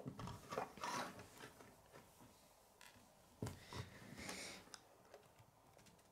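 Faint clicks and light rattling of small plastic Lego pieces being handled and pressed together, in a cluster in the first second and again in the middle.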